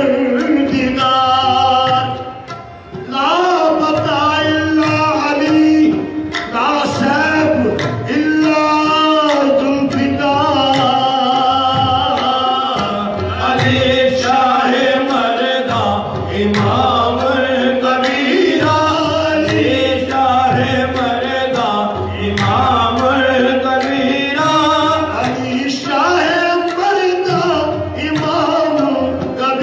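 Qawwali: a male lead voice singing long, gliding melodic phrases over instrumental accompaniment, with a short drop in the music about two to three seconds in.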